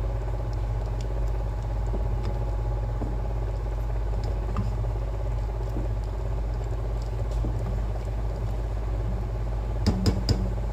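Egg noodles boiling in a pot of water, stirred with a spatula: soft bubbling with light scrapes and taps of the spatula over a steady low rumble, and a few sharp knocks against the pot near the end.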